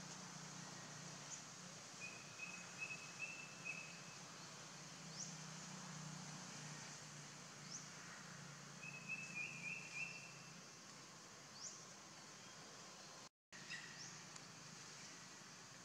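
Faint forest ambience: a steady high insect hiss with birds calling, a few short rising chirps and two brief trilled calls, one around two to four seconds in and another around nine to ten seconds.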